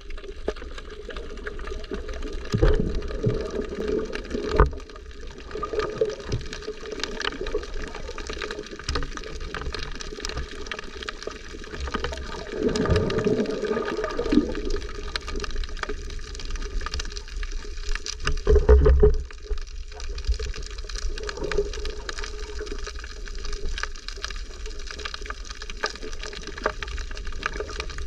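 Sea water sloshing and gurgling, with louder surges about 3, 13 and 19 seconds in.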